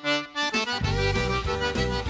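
Intro music: a melodic lead, joined a little over half a second in by a bass line and a steady beat.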